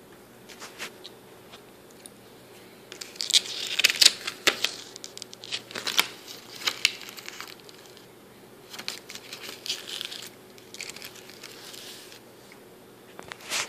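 Pages of a spiral-bound paper booklet being turned and pressed flat by hand: paper rustling and crinkling with small sharp clicks, in spells starting about three seconds in and again later.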